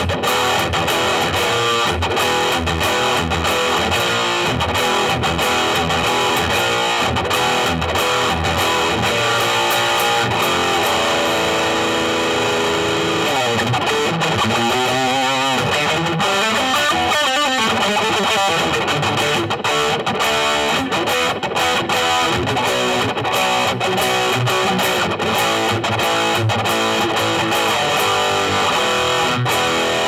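Gibson Les Paul Standard electric guitar played through a Blackstar HT Soloist 60 tube amp: continuous fast-picked lead playing with a distorted tone. Notes waver and bend in pitch about halfway through.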